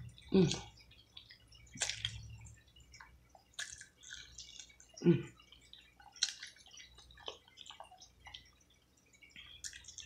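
Close-up wet eating sounds: scattered lip smacks, sticky clicks and chewing from eating sauce-glazed fried chicken, with two louder, lower mouth sounds about half a second in and about five seconds in.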